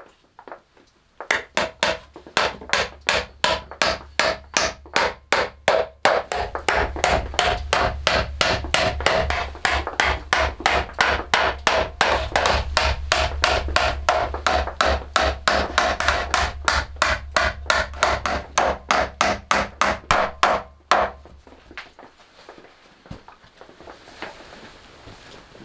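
Claw hammer driving nails into scrap wood planks, a steady run of blows about three a second for some twenty seconds, then stopping near the end.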